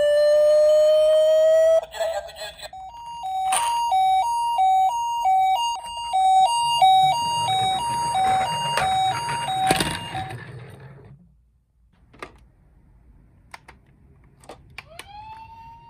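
Emergency-vehicle siren: a wail rising in pitch, then a hi-lo two-tone 'pee-poh' pattern switching back and forth between two notes, of the kind used on a Japanese ambulance. Some rumble and a couple of sharp clicks come under it, and it stops about ten seconds in, leaving only scattered light clicks.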